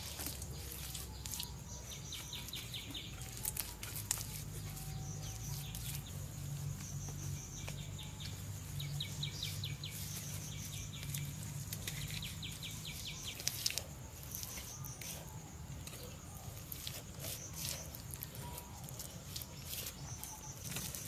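Wet mud and straw being pressed and patted by hand onto the cut rims of bamboo posts: soft squelches and scattered taps. A bird repeats a rapid, chirping trill about three times.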